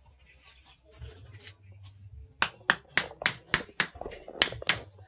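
A wooden handle being driven onto a sword's hot tang: after a couple of quiet seconds, a run of about ten quick, sharp knocks, three or four a second.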